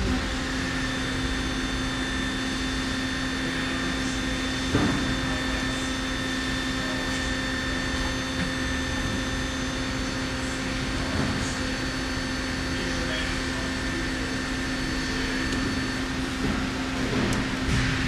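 Miyano LM-11 CNC lathe running after being switched on: a steady hum with a whine in it sets in at once. There is a single knock about five seconds in and a few more knocks near the end.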